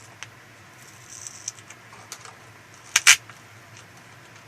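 Silver adhesive tape over a laptop LCD cable connector being peeled from its backing: faint scratches and ticks, then a short crackle about three seconds in.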